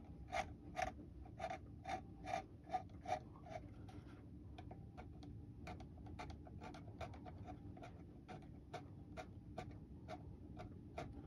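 A tool scraping in short strokes along the moulded brake lines of a painted plastic model car underbody, scratching away the paint to bare the gray plastic beneath. Two to three strokes a second, lighter and quicker after about four seconds.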